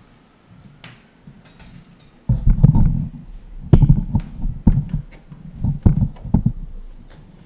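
Irregular knocks, thumps and clicks of a power supply cord being handled and unplugged from an embroidery machine. A quiet spell comes first, then about four seconds of clatter.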